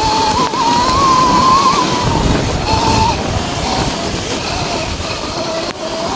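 Sur-Ron electric dirt bike's motor whining at speed, its pitch rising and falling with the throttle. Under it runs a steady rush of wind and tyre noise.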